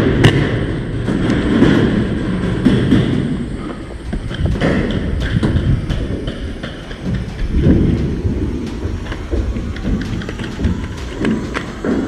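Paintball game action: scattered sharp pops of markers firing and irregular thuds over a low rumble of wind and handling.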